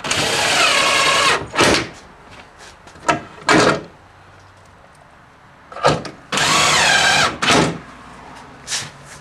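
A power drill driving screws, apparently fastening the wire stripper's base down to a workbench. It runs twice for about a second and a half each, its pitch falling as it takes up the load, with shorter bursts in between.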